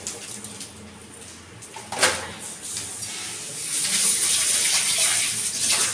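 A sharp knock about two seconds in, then a kitchen tap running into a steel sink as hands are washed under the stream.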